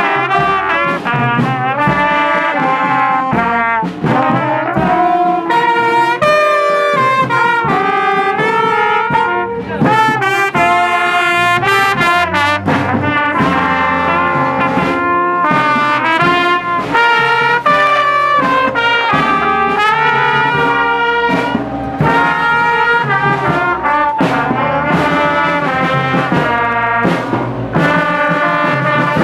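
Brass-led music playing continuously, a melody of changing notes with horns carrying the tune.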